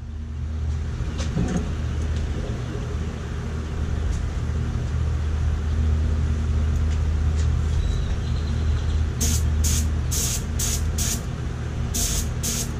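HVLP spray gun spraying Cerakote high-temperature air-cure ceramic coating onto an exhaust downpipe: a quick run of short, separate hisses, one per trigger pull, starting about nine seconds in. Underneath is a steady low hum.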